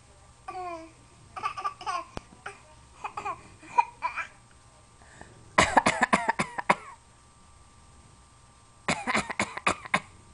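Fake coughing in quick runs of short coughs: a few scattered coughs in the first four seconds, then a loud fit of several coughs about halfway through and another near the end.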